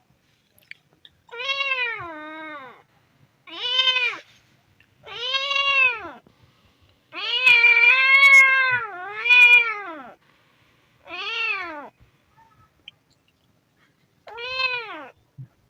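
A kitten meowing about seven times, each meow a high cry that rises and then falls in pitch, with short pauses between them; the longest and loudest meows come near the middle.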